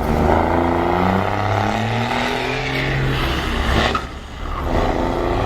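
Volkswagen 24.250 truck's diesel engine rumbling heavily, its pitch shifting up and down as the revs change, with a brief drop in loudness about four seconds in.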